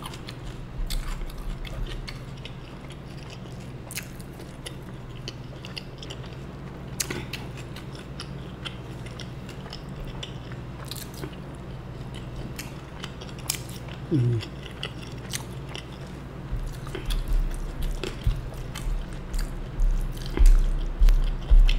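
Close-miked eating sounds: a person chewing with wet mouth clicks while handling soft food by hand. Low thumps grow louder over the last few seconds.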